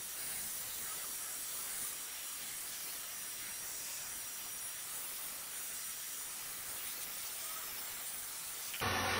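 Handheld heat gun blowing hot air: a steady hiss. Near the end the sound turns louder and fuller.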